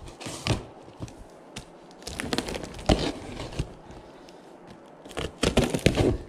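Folding knife slicing the packing tape along the seam of a cardboard box, with crackling and rustling of tape and cardboard. The sound comes in two spells of cutting, one about two seconds in and a louder one near the end.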